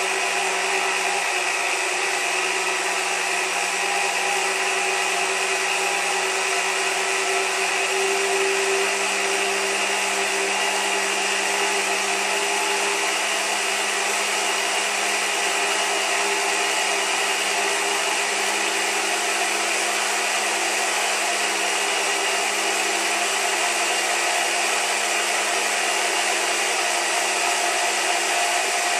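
Small electric motor running steadily: an even whirring hiss over a low hum, without a break.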